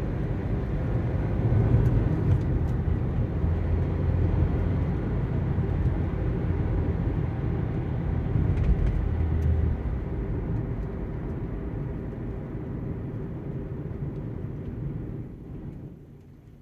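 Interior driving noise of a 2003 Toyota Celica GT-S under way: the 1.8-litre four-cylinder engine and tyre rumble, steady for about ten seconds, then easing off and dropping away sharply near the end.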